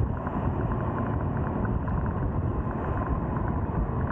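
Royal Enfield Scram 411's single-cylinder engine running steadily at cruising speed, mixed with wind noise on the microphone.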